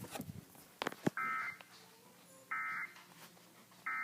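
Emergency Alert System end-of-message data tones from an FM radio: three short buzzy digital bursts about a second and a half apart, signalling that the test tornado warning has ended. A few sharp clicks come first, the loudest about a second in.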